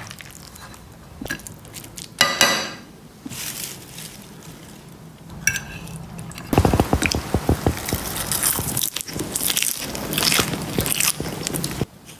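Metal utensils scraping and clinking against dishes: a serving spoon in a pan of rice first, then a fork and spoon tossing leafy greens and rice in a ceramic bowl, with dense crunching and scraping from about six and a half seconds in.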